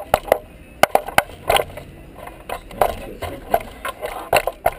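Irregular metal clicks and clinks, about a dozen sharp taps, as a thin metal prop rod is handled and fitted against the motorcycle's lifted fuel tank to hold it up.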